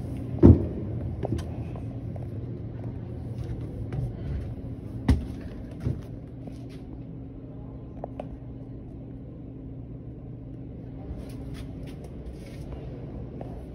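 Footsteps and knocks of someone climbing aboard an old trolley car and walking through it, with a sharp thump about half a second in and two more knocks around five and six seconds, over a steady low hum.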